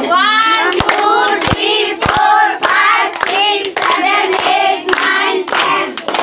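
A group of people singing together, with hand claps in among the singing.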